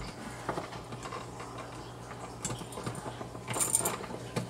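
Small metallic clicks and rattles of a wall receptacle and its wires being pushed and fitted into a blue electrical box, with a brighter jingle of clicks about three and a half seconds in.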